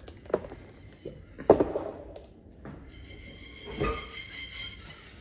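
A few knocks and bumps, the loudest about a second and a half in, like a door or cupboard shutting. Then, from about halfway, background music with high held notes comes in.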